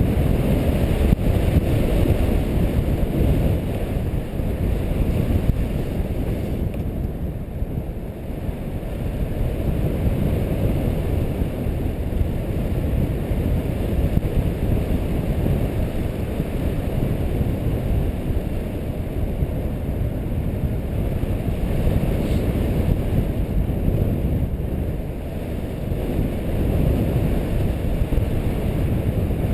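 Wind noise from the airflow of a tandem paraglider in flight buffeting the camera microphone: a steady low rumble that swells and eases slightly.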